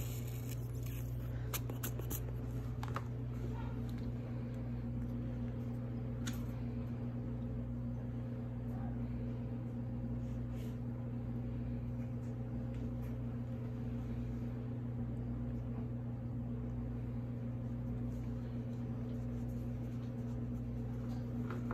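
Steady low hum of a running fan or appliance, with a few light clicks and handling noises in the first few seconds.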